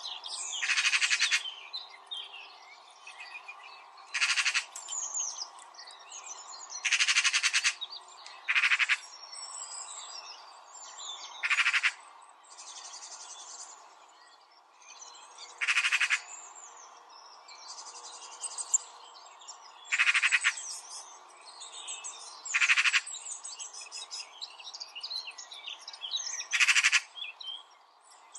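Birds chirping in the background, with a loud, harsh animal call about half a second to a second long that recurs about nine times, a few seconds apart.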